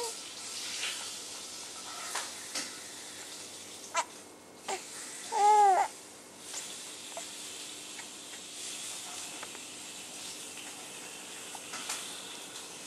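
Six-week-old baby giving one loud, brief whimper that rises and falls in pitch about five seconds in, after a couple of short vocal sounds, over a steady background hiss.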